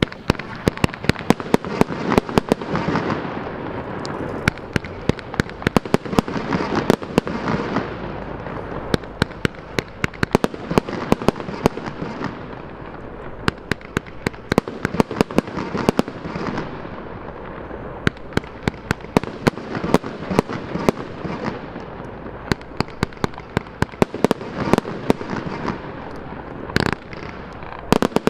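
A 42-shot, 1-inch consumer firework cake firing its shots in rapid succession: dozens of sharp bangs over a continuous hiss from the burning effects.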